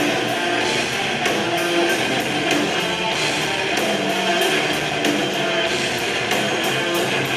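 Metalcore band playing an instrumental passage: electric guitars over drums, with cymbal hits about three to four times a second.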